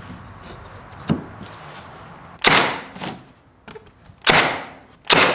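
Milwaukee cordless nailer driving nails into a wooden trim strip on a frame: three sharp shots, each dying away quickly. The first comes about halfway through, the next nearly two seconds later and the last at the very end. A faint click comes about a second in.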